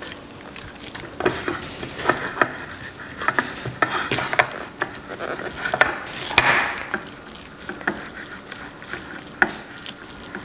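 A metal fork mashing and stirring quince paste on a plate, the paste softened with a little hot water: irregular clicks and scrapes of the fork against the plate.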